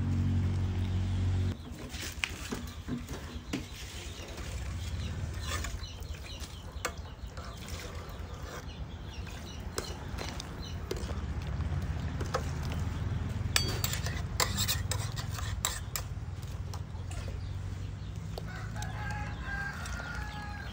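Chickens clucking and calling, with a pitched call near the end. Scattered light clicks and taps come from skimming a steel soup pot with a metal mesh strainer. A steady low hum is the loudest sound at the start and cuts off about a second and a half in.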